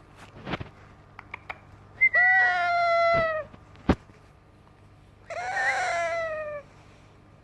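Young yellow ringneck parakeet moaning like a cat: two drawn-out meow-like calls, each falling slightly in pitch, one about two seconds in and one near the end. A few sharp clicks fall between the calls.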